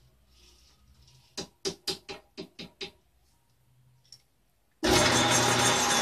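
A metal lathe stands quiet while about eight quick, sharp knocks sound in a row. A little over a second before the end the lathe starts up abruptly and runs loudly and steadily.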